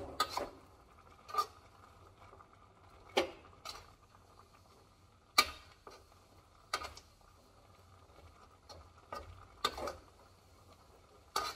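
A spatula clinking and scraping against a wok while food is stir-fried: a dozen or so irregular strokes, the loudest about halfway through.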